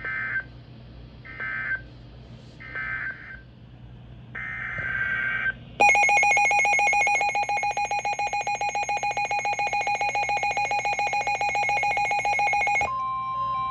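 Emergency Alert System data bursts on a NOAA weather radio broadcast: three short bursts of shrill warbling digital tone, then a longer burst. These are followed by about seven seconds of the loud, harsh two-tone EAS attention signal, and a steady single alert tone begins near the end.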